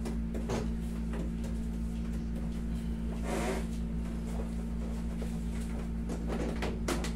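Steady low hum from a room air conditioner. Over it come scattered soft taps and rustles as a leg is bent and pressed against a padded massage bed, and a brief hiss about three seconds in.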